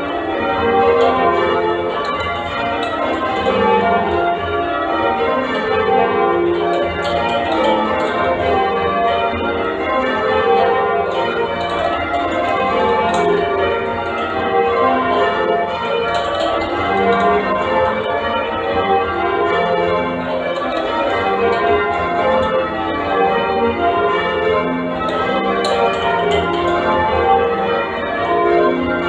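Church bells being change-rung full circle: a continuous, even succession of bell strokes, each ringing on into the next.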